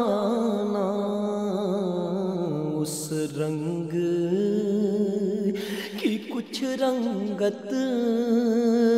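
Male voice singing an Urdu naat in long, wavering held notes, with no steady beat.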